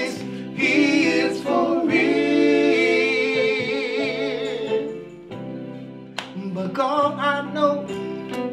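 Male gospel singers singing together, drawing out long notes with a wavering vibrato. About halfway through the voices fall back and the music goes quieter on held tones.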